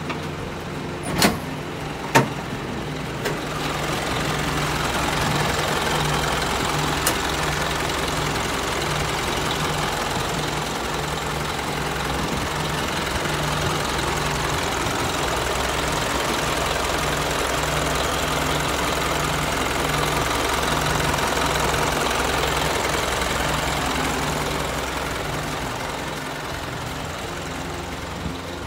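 Isuzu Forward truck's diesel engine idling steadily, louder through the middle and easing off near the end. Two sharp clicks about one and two seconds in.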